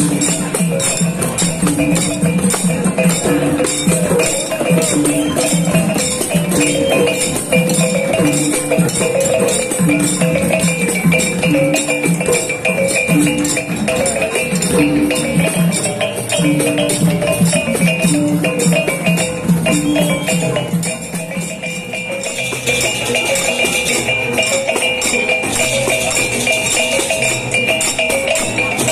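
Music with quick, steady percussion strokes over a short melodic figure that repeats every second or two; it drops briefly quieter about 21 seconds in, then carries on.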